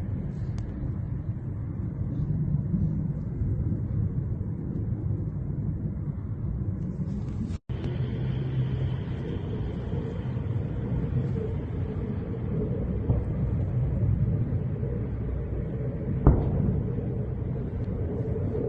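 Steady low rumbling noise, broken by a momentary dropout near the middle, with a single sharp bang about two seconds before the end.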